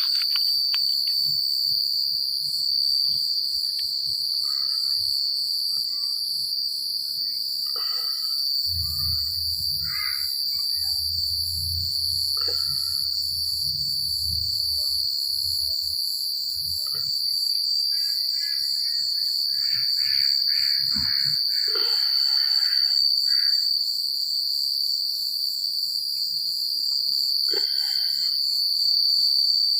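Crickets chirping at night: a continuous high-pitched trill with a second, rapidly pulsing insect song above it. Short faint chirps come and go underneath, bunched together about two-thirds of the way through.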